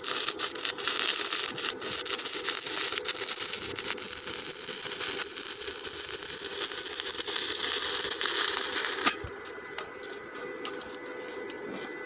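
Stick (SMAW) welding arc crackling steadily as a bead is run along a steel plate. The arc breaks off abruptly about nine seconds in.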